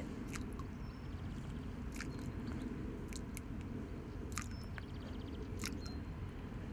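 Raisins tossed as loose-feed into still water: scattered small sharp plops and clicks, about one or two a second, over a low steady background rumble.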